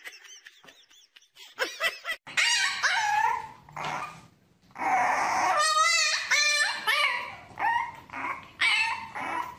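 A French bulldog puppy whining and howling: a run of high, wavering cries, some short and some drawn out, starting about two seconds in.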